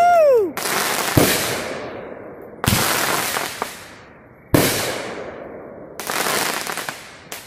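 Consumer aerial fireworks bursting overhead: about six loud booms at irregular intervals of one and a half to two seconds, each with a long fading tail.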